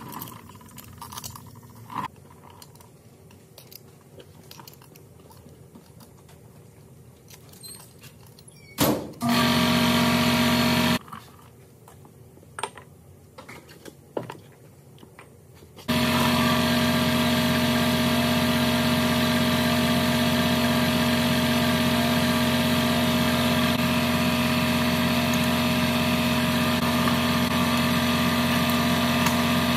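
A few light metal taps and clicks of hand tools. Then a loud, steady machine sound with a strong hum, heard briefly about nine seconds in and again without a break from about sixteen seconds on.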